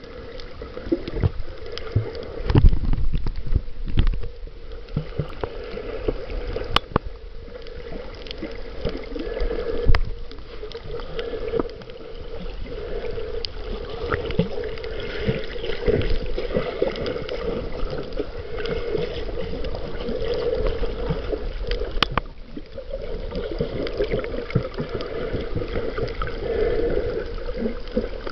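Underwater water noise around a submerged handheld camera while snorkeling: a steady gurgling wash with a low rumble. Frequent small knocks and bumps from the camera being handled while swimming, the loudest about three seconds in and around ten seconds in.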